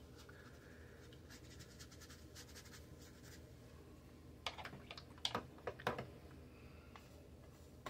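Faint scratchy strokes of a watercolour brush on paper, then a quick cluster of sharp clicks and taps about halfway through as the brush is worked at the metal paint palette.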